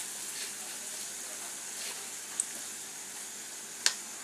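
Coconut oil tempering (mustard seeds, shallot, red chilli, curry leaves) sizzling steadily in an aluminium kadai as grated coconut is sprinkled in. Two sharp ticks break the hiss, the second and louder one shortly before the end.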